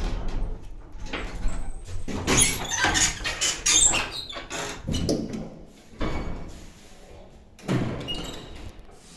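Lift doors being worked at the end of a ride: clattering, scraping and knocks, busiest for a couple of seconds near the start, then a few shorter slides and thuds.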